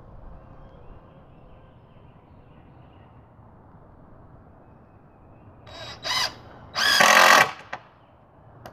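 Cordless drill driving a screw down through a wooden board: the motor whines in two short runs about a second apart near the end, the second longer and louder.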